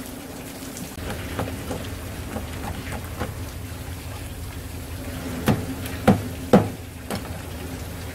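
Running water splashing onto a plastic cutting board as pieces of sea bass are rinsed under it. Three sharp knocks from the fish handling come about five and a half to six and a half seconds in.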